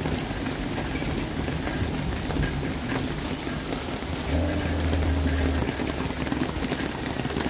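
Steady rain falling, with individual drops ticking on nearby surfaces. A brief low hum comes in a little past four seconds and lasts just over a second.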